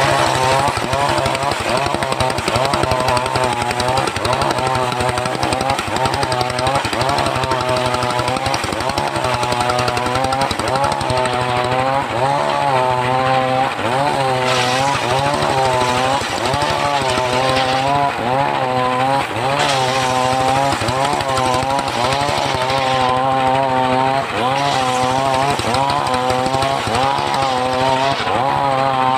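Engine-driven saw cutting wood, its engine note dipping under load and recovering in a steady rhythm about once a second.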